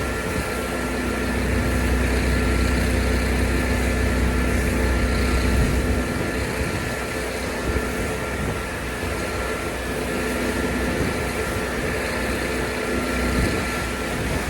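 An engine running steadily, with a strong low rumble that eases about six seconds in and a few held tones over a steady hiss.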